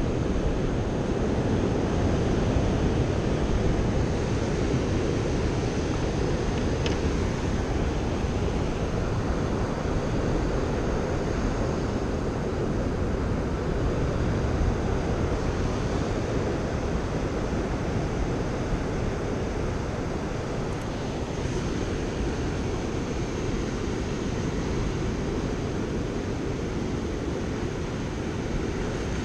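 Steady wind buffeting the microphone over the wash of a fairly rough ocean against the shore.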